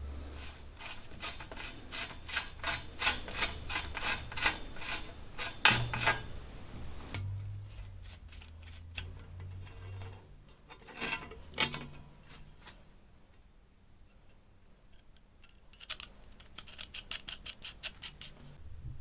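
Hand rubbing or scraping on a bicycle part being restored: an even run of rasping strokes, about four a second, for the first several seconds, then slower, sparser scrapes. After a pause comes a quick run of light ticks near the end.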